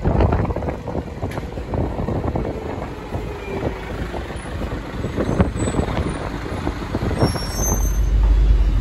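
City buses and traffic passing close by, a steady low engine and tyre rumble that grows louder near the end.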